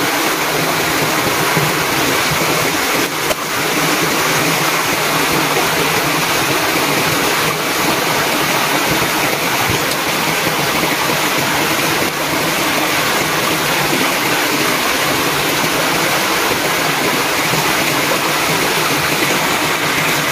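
Shallow rocky stream running over stones, a steady wash of water noise.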